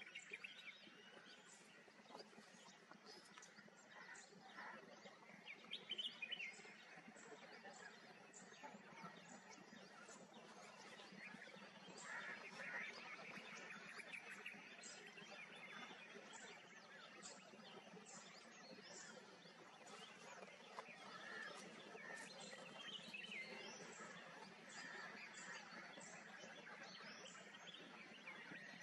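Faint outdoor ambience with many scattered bird chirps and short calls.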